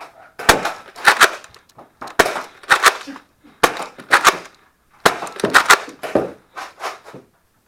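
Nerf Rival foam-ball blasters firing in quick volleys: a run of sharp cracks in clusters of two or three, about a dozen in all.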